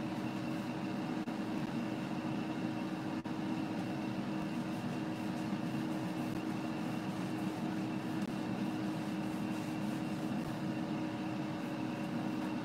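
Ninja air fryer running with a steady, even hum while it cooks battered catfish fillets.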